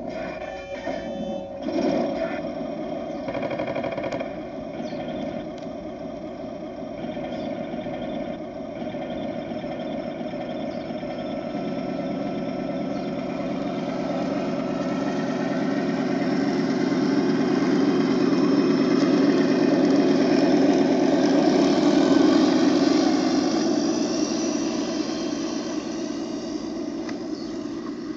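Heng Long Leopard 2A6 radio-controlled model tank driving: its electric drive motors and built-in sound unit's simulated tank engine run steadily, growing louder to a peak about three quarters of the way through, then fading as the tank moves away. A few sharp knocks come in the first few seconds.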